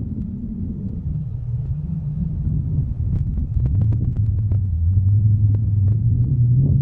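Ford F-150 pickup's engine running at low revs as the truck creeps along a dirt trail, a low steady drone that grows somewhat louder about halfway through. Scattered sharp clicks and ticks come in over it from about three seconds in.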